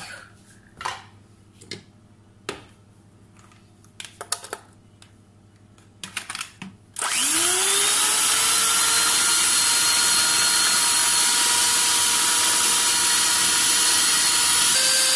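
A few light knocks and clicks, then about halfway through an electric hand mixer switches on. Its motor whine rises as it spins up and then runs steadily as the beaters whip egg whites and sugar into meringue.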